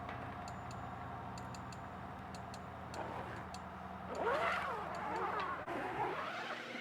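A motor idling steadily, with faint ticking, that stops about six seconds in. A few gliding, whistle-like calls sound over it between about four and six seconds in.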